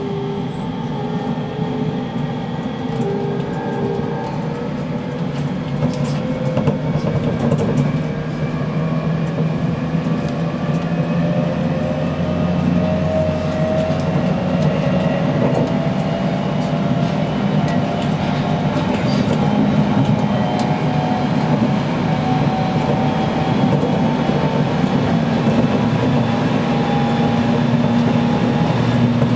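Aoimori Railway 701 series electric train accelerating away from a station, heard from inside the rear cab: the motor whine rises slowly in pitch over the rumble of the wheels on the rails, with a few clicks over rail joints.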